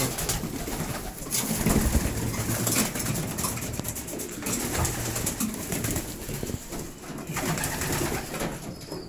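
Young racing pigeons cooing inside a small wooden loft, with the sharp clatter of wings several times as birds take off and land.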